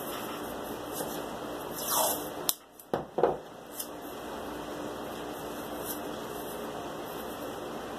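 Steady background hiss. About two to three and a half seconds in there are a few brief rustles and sharp clicks from hands handling small cardboard pieces at the workbench.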